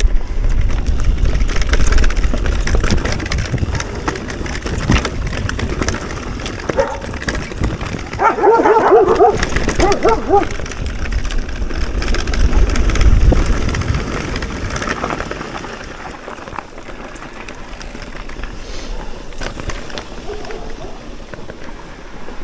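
Electric enduro mountain bike riding down a rough trail: rumbling tyre noise with many clicks and rattles from the bike, and wind buffeting the microphone. A brief wavering tone sounds about eight seconds in.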